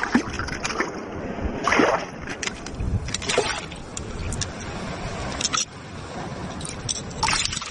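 Shallow tide-pool water splashing and sloshing as hands grab at a fish among the rocks, with a few irregular splashes.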